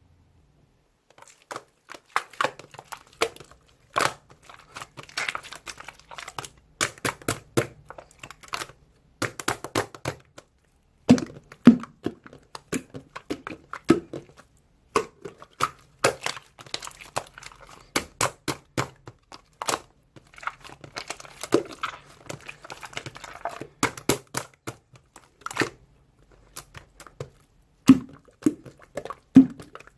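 Slime being squished, stretched and pressed by hand, making dense, irregular crackling pops and clicks with short pauses.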